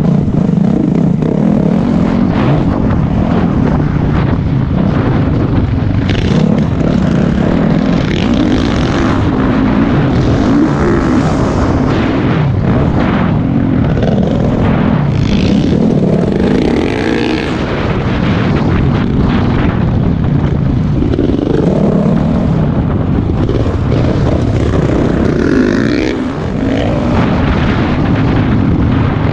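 Motocross bike's engine running hard at race pace, close up from the rider's seat. The revs rise and fall through corners and gear changes, and the engine briefly eases off twice, about two-thirds through and near the end.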